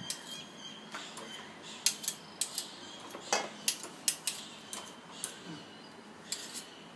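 Metal spoon scraping and clinking against a stainless steel mixing bowl of creamed butter, in quick irregular clinks.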